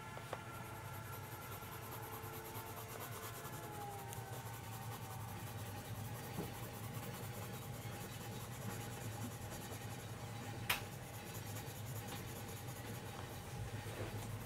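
Coloured pencil rubbing and scratching across sketchbook paper in steady shading strokes, over a low steady hum, with one sharp click about three-quarters of the way through.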